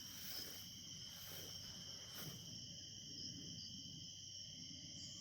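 A chorus of night insects trilling steadily as a continuous high-pitched drone.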